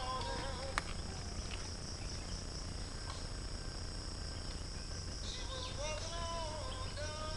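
Steady high-pitched drone of a chorus of forest insects, with a single sharp click just under a second in.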